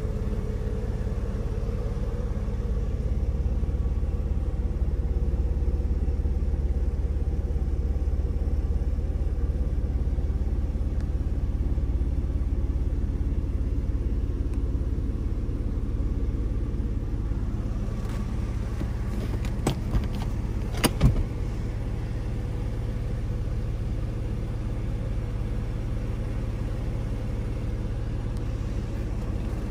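The Porsche 911 (996) Carrera's flat-six engine idling steadily, heard from inside the cabin as a low hum. A few sharp clicks and knocks come about two-thirds of the way through.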